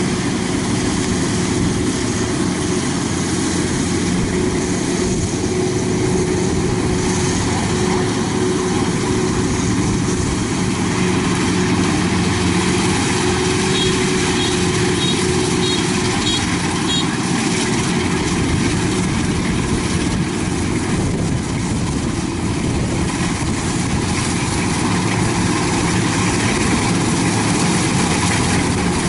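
Kubota DC-93 combine harvester's diesel engine and threshing gear running steadily under load as it cuts rice, a constant even hum that never changes pitch.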